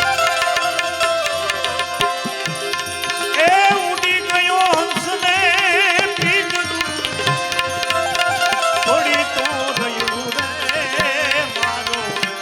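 Devotional bhajan music with no lyrics heard: a tabla keeps a steady beat under a melody line of wavering, ornamented notes.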